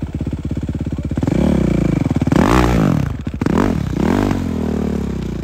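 Suzuki dirt bike engine idling, then revved up and down several times as its studded rear tyre spins and digs in deep snow.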